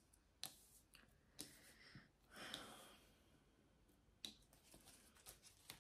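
Near silence: room tone with a few faint clicks and a brief soft rustle.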